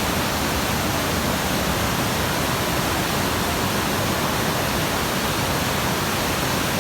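Waterfall: a steady, loud rush of falling water, even and unbroken.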